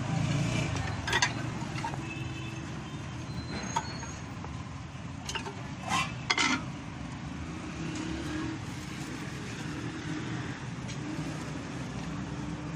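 Steady low street background rumble of traffic, with a few sharp clinks and knocks of a spoon and jar lids being handled, the loudest pair about six seconds in.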